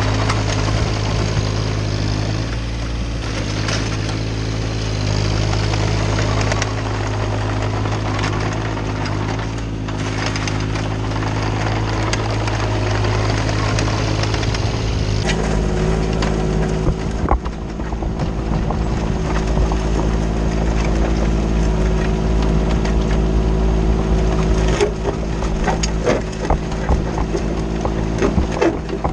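Komatsu mini excavator's diesel engine running steadily, its note changing about halfway through, with scattered knocks and clanks from the bucket and blade working gravel in the second half.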